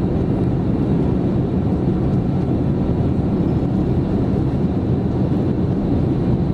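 Steady roar of engine and airflow noise inside the cabin of an Airbus A330-200 climbing after takeoff.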